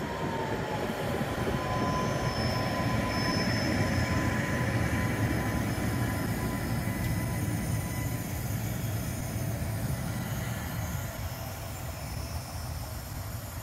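Tatra T4D tram with a trailer car passing close on the tracks: wheels rumbling on the rails with a thin high squeal. The sound builds over the first couple of seconds and eases off after about ten.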